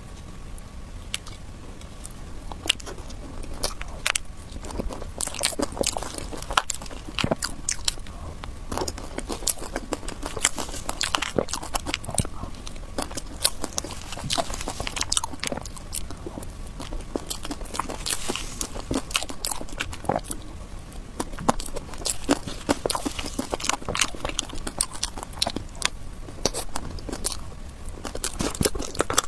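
Close-miked eating of cake: wet chewing with many quick, sharp mouth clicks and smacks, sparse at first and then coming thick and fast.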